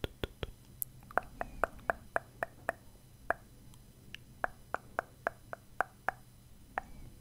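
Close-miked wet mouth clicks and lip pops, quick and uneven, about three a second with a short pause midway.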